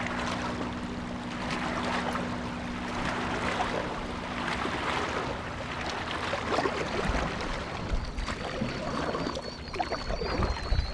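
Wake waves slopping and splashing against a kayak hull and the rocks of a levee bank, with a steady low motor hum from a wake boat that fades out about halfway through.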